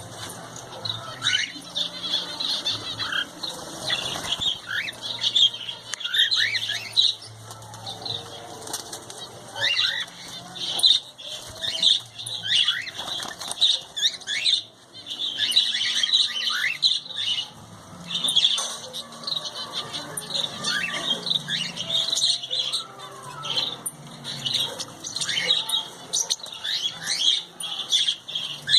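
A colony of small cage birds chattering continuously, with many overlapping high chirps and short falling calls, and wings flapping.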